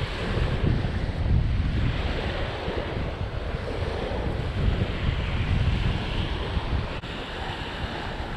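Small waves washing onto a sandy shore, with wind buffeting the microphone. There is a faint click about seven seconds in.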